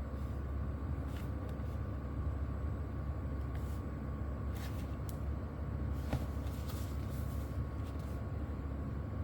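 Steady low hum of background noise with a faint steady tone above it, broken by several brief clicks and rustles of packaging being handled.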